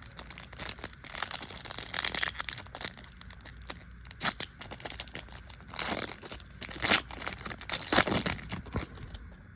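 Plastic trading-card pack wrapper crinkling and tearing as it is opened and handled, in irregular crackly bursts.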